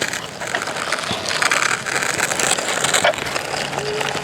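Gritty scraping and rustling of a toy construction truck being pushed through sand, in uneven surges.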